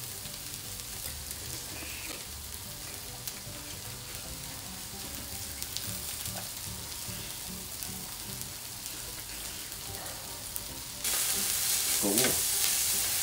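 Lamb chops and scallops sizzling on a hot electric grill pan. About eleven seconds in, the sizzle turns suddenly louder as more raw lamb chops are laid on the hot plate with tongs.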